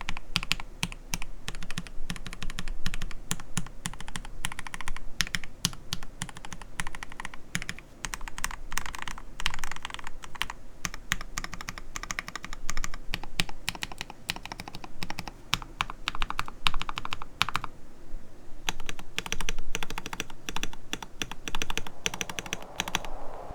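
Typing on a KBD67 Lite gasket-mount custom mechanical keyboard fitted with lubed Gateron Yellow linear switches and thick PBT keycaps: a rapid, continuous run of keystrokes with a brief pause about three-quarters of the way through.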